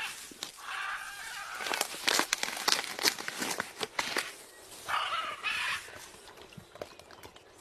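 A parrot giving two short, harsh calls amid many sharp clicks and taps.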